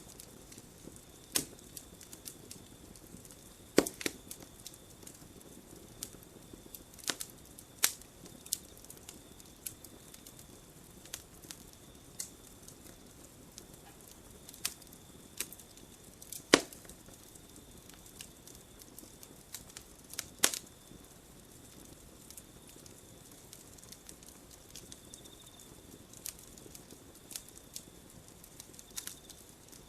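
Wood campfire crackling: a low steady rustle of burning with irregular sharp pops and snaps, a handful of them much louder than the rest. A faint steady high tone runs underneath.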